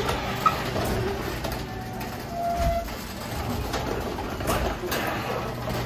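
Overhead sectional garage door closing, rolling down its tracks with a steady low hum and a few short squeaks from the rollers.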